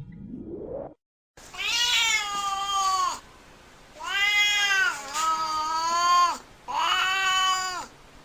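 A grumpy domestic cat moaning and meowing: four drawn-out, whiny calls, each rising then falling in pitch. A short rising sweep comes just before the first call.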